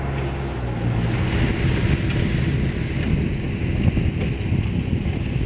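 Bobcat 753 skid steer loader's diesel engine running hard as the machine works dirt, a steady low rumble that grows rougher about half a second in, with a hiss over it.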